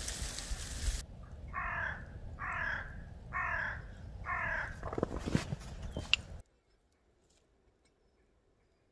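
A crow cawing four times, harsh calls about a second apart, after a second of rushing noise.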